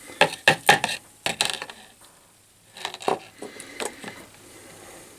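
Sharp metallic clicks and clinks from a pair of old steel pliers and copper wire being handled: a quick cluster in the first second and a half, then a few more about three to four seconds in.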